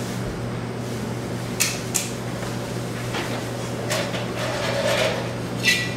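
Spices being handled and shaken in a dry frying pan: a few light clicks and rattles, strongest near the end, over a steady low hum.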